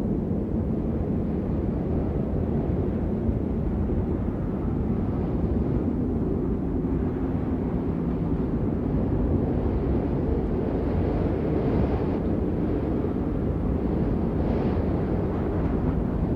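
Steady rain, a dense low rushing noise with little high hiss, even in level throughout.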